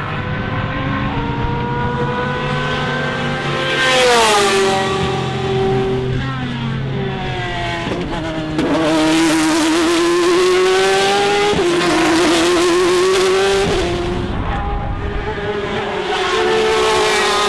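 Ferrari 458 GT race cars' V8 engines running hard on track, pitch climbing with the revs and then dropping steeply about four seconds in at the loudest point as a car goes by. Revs climb again through the rest, rising and falling as cars pass.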